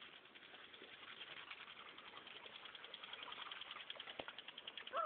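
Impact lawn sprinkler ticking fast and evenly as it sprays, with a single sharp click about four seconds in.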